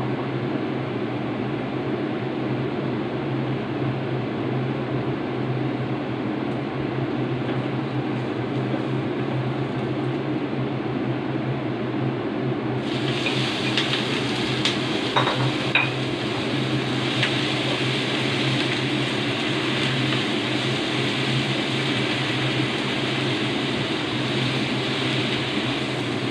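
A steady low hum throughout; about halfway through, a loud sizzle starts as blanched choy sum hits the hot oil and beef in the frying pan, and it keeps sizzling, with a few clicks of the turner and plate against the pan.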